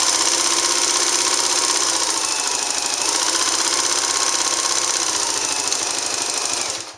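Late-1950s Belvedere portable straight-stitch sewing machine running at full speed, stitching through fabric: a rapid, even clatter with a faint whine, stopping suddenly near the end.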